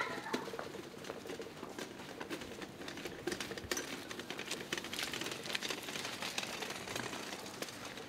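Snow crackling and crunching in a dense, irregular stream of small ticks, as on a walk through fresh snow.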